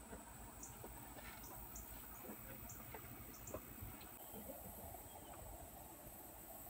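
Faint outdoor ambience: a steady high insect drone with short, high chirps scattered irregularly through it, and a few faint soft ticks.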